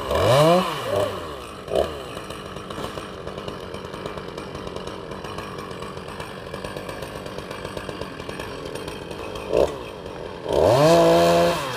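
Two-stroke chainsaw revved briefly, then idling with a fast, even putter, then opened up to full throttle for about a second near the end before dropping back.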